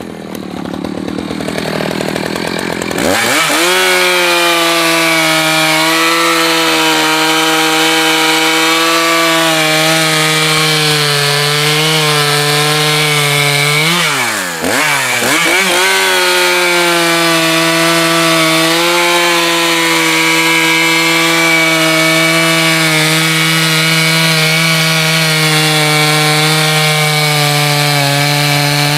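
Echo two-stroke chainsaw cutting firewood: it revs up quickly about three seconds in and runs at a high, steady pitch under load, with a brief drop and recovery in revs about halfway through.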